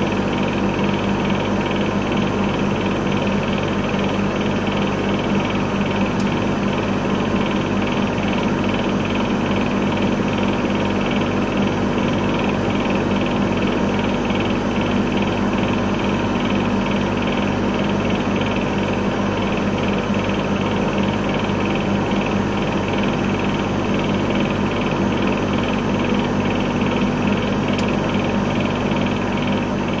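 Food and drinks vending machine running, a steady buzzing hum with a fast rattle that does not change, easing down slightly at the very end.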